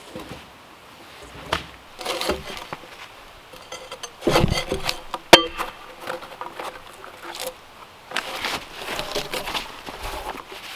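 Strips of bark being pulled and torn by hand off logs, making irregular scraping and crackling sounds in wood and dry leaves, with one sharp click about five seconds in.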